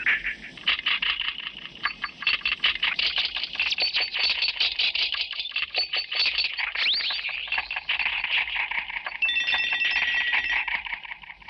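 Automated glass bottle-making machinery running, with rapid mechanical clicking and clinking, two brief rising-and-falling squeals, and a steady high tone of several notes from about nine seconds in until near the end.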